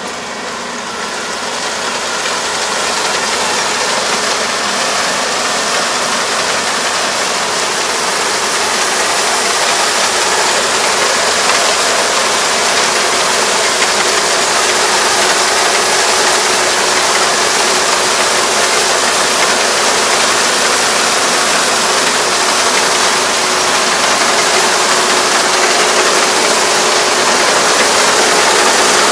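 Four-row combine harvester running as it cuts and threshes lodged rice: a steady, dense engine and machinery din. It grows louder over the first few seconds as the machine comes closer, and a faint steady whine joins in about halfway.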